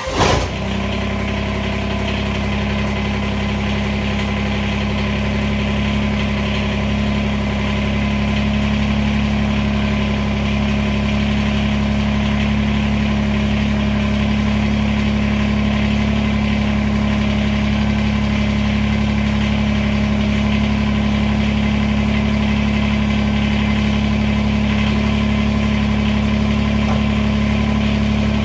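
Kubota BX2380 compact tractor's small three-cylinder diesel engine starting at the very beginning and settling straight into a steady idle.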